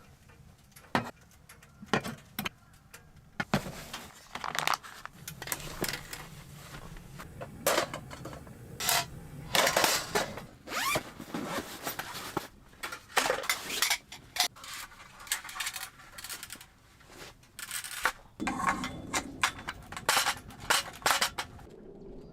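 Irregular handling noises: rustling, scraping and light clinks, as of camp gear being handled, busiest in the middle and thinning out near the end.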